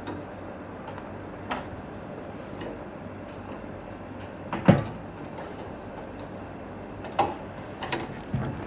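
Scattered knocks and clicks of equipment being handled, the loudest a single knock about halfway through, over a steady background hum.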